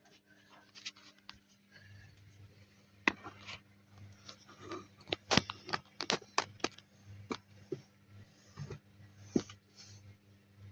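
Samsung washing machine running on a cotton cycle: a steady low motor hum with a pulsing low throb, overlaid by scattered sharp clicks and knocks.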